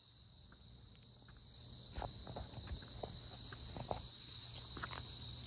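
Steady high-pitched chirring of crickets, with a few soft knocks from about two seconds in.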